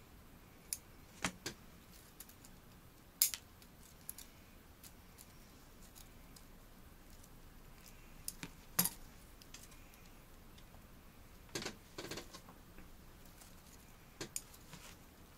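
Bonsai scissors snipping twigs off a Korean hornbeam bonsai: short, sharp metallic clicks, about a dozen in small clusters spread irregularly, with a quiet background between them.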